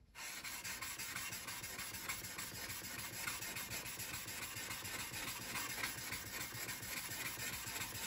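Steel card scraper, held upright in a wooden block, rubbed rapidly back and forth on the broad face of a sharpening stone, making a continuous scraping rasp. The edge is being ground flat and square.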